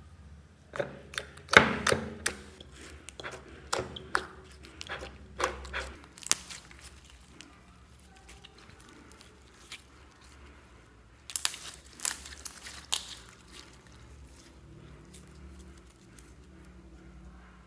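Glittery pink slime being squeezed, stretched and folded by hand, giving sticky clicks and crackling pops. They come in two clusters: a busy run from about a second in to about six seconds, and a shorter one around eleven to thirteen seconds, with quieter squishing between.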